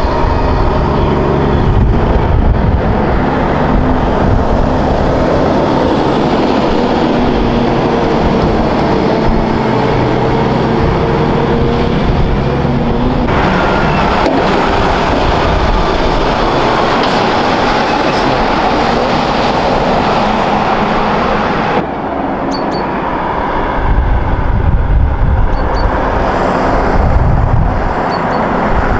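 Heavy diesel trucks driving past one after another: a Kenworth cab-over, then a Fuso hauling a low-loader, then a Volvo FM B-train, with engine rumble and tyre noise. The sound changes abruptly about halfway through and again later, as one truck gives way to the next.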